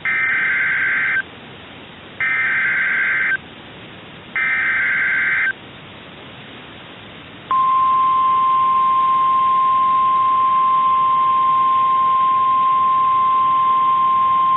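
Emergency Alert System SAME header: three bursts of warbling digital data tones, each about a second long with short gaps between. About two seconds after the last burst, the steady single-pitch 1050 Hz NOAA Weather Radio warning alarm tone begins and holds, announcing a tornado warning.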